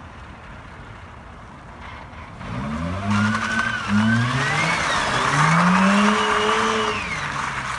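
Mazda RX-8's rotary engine revving up and down as the car drifts, with tyres squealing on the asphalt. It is quieter at first, picks up about two and a half seconds in, is loudest in the middle, and eases off near the end.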